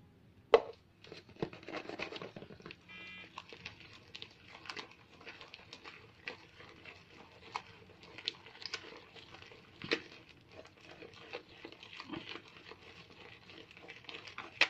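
Homemade glue and shaving-gel slime being beaten and worked, giving irregular small sticky clicks, pops and crackles. The slime is still sticky, not yet fully set.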